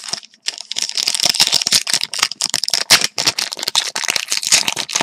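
Trading-card pack wrapper crinkling and crackling as it is handled and torn open by hand, a dense, irregular run of sharp crackles.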